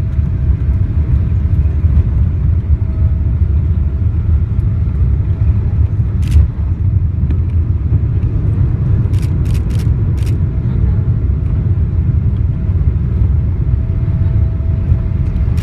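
Cabin noise of a Boeing 777-200ER's landing rollout: a loud, steady low rumble from the aircraft rolling down the runway with its spoilers deployed, under a faint steady tone. A sharp click about six seconds in and a quick run of clicks around nine to ten seconds in.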